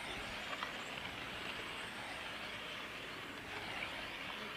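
1/8-scale electric on-road RC race cars running round the circuit: a steady wash of motor and tyre noise, with a faint whine gliding past a little after the middle.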